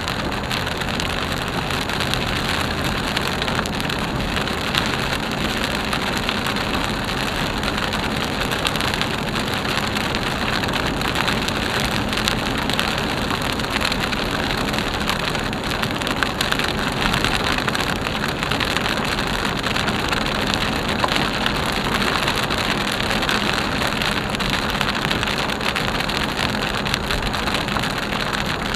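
Heavy monsoon rain pattering on a moving car's roof and windshield, heard from inside the cabin, with tyres hissing on the flooded road beneath. The sound is a dense, steady patter of many small drop hits.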